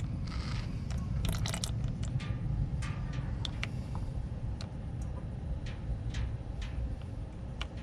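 Oil draining from an RV generator into a drip pan, heard as scattered light clicks and drips over a steady low rumble, with two brief hissy rustles about one and a half seconds in.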